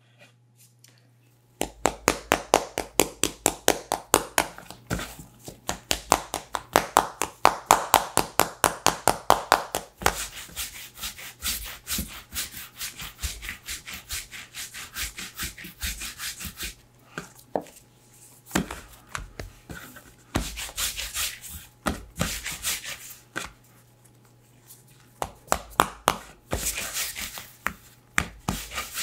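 Hands rolling pretzel dough into a long rope on a bamboo cutting board: quick rhythmic rubbing strokes of palms and dough against the wood, about four a second, starting about a second and a half in, with a few short pauses.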